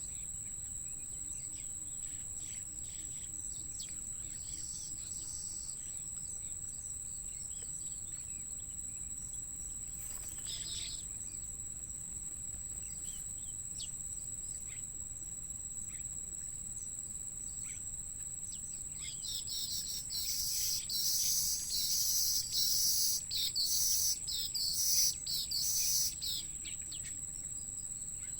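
A steady high-pitched insect trill, like crickets, runs throughout. About two-thirds of the way in, birds start a burst of loud, rapid, high chirping that lasts about seven seconds and then stops.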